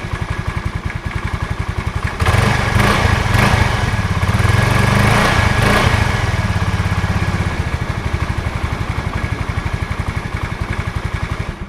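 Automatic scooter engine idling with a fast, even putter. About two seconds in it is revved for a few seconds, then settles back to idle and is shut off at the very end.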